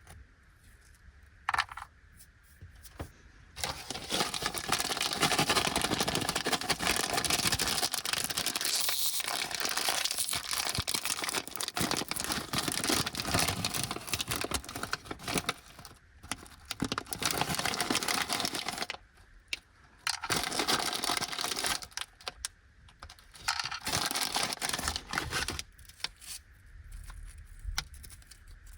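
Plastic snack wrapper of an Anpanman karinto multipack crinkling and being torn open. A long spell of dense crinkling starts a few seconds in, followed by shorter bursts of handling.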